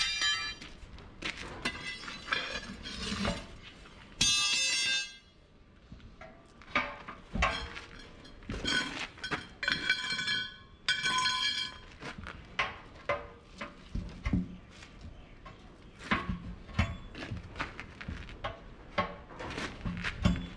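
Steel tire irons clanking and scraping as a tractor rear tire's bead is levered by hand, a run of knocks and clinks with several ringing metal strikes, the longest about four seconds in.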